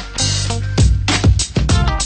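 Background music with a drum beat over a steady bass line.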